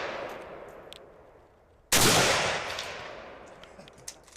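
A single rifle shot about two seconds in, with a long fading echo; the tail of the previous shot is dying away at the start.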